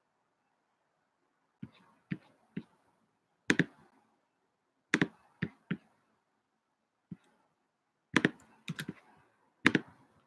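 Scattered sharp clicks of a computer keyboard being typed on: a dozen or so keystrokes, some single and some in quick pairs and short runs, with pauses of up to a second and a half between them.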